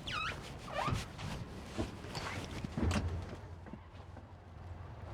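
A few short high squeaks that slide downward in pitch, mostly in the first second, among scattered knocks and rubbing, over a low steady rumble.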